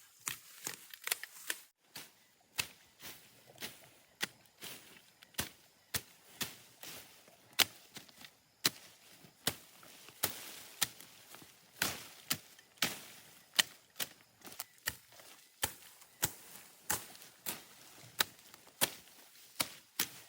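Hand tool chopping in a long run of sharp strokes, roughly one to two a second and uneven in strength, typical of cutting back vegetation while clearing a pond bank.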